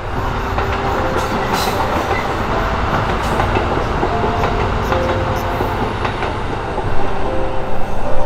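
KiHa E130 series diesel railcar train passing close by, its engine and wheels on the rails making a steady rumble.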